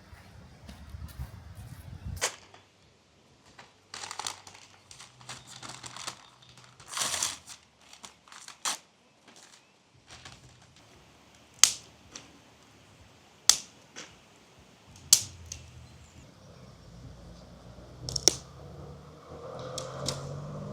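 A series of sharp clicks a second or two apart, with brief rustling between them.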